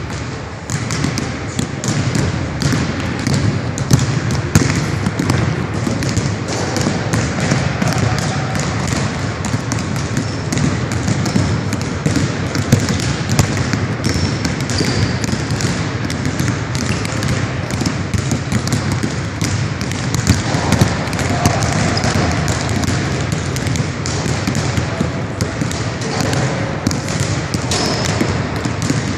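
Several basketballs being dribbled on a hardwood gym floor at once, the bounces overlapping into a dense, irregular run of impacts.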